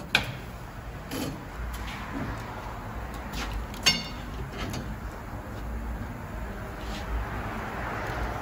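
Tyre-changer machine and steel tyre tools at work on a tyre and rim: a sharp metal clink just after the start and a louder, ringing metal clink about four seconds in, with lighter knocks between, over a low rumble that sets in after about a second and a half.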